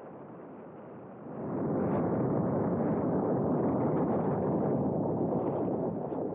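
Rushing airflow over a camera mounted on an E-flite A-10 RC jet in flight. It is moderate at first, swells sharply about a second in, and holds steady.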